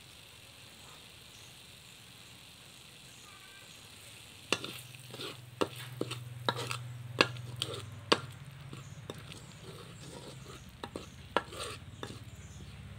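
Metal spatula scraping and clacking against a steel wok while stirring thick panang curry paste, starting about four and a half seconds in with sharp, irregular strokes. A steady low hum runs underneath.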